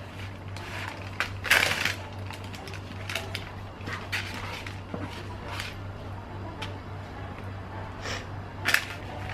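Kitchen handling sounds: scattered light clicks and short scrapes, the loudest about a second and a half in and again near the end, over a steady low hum.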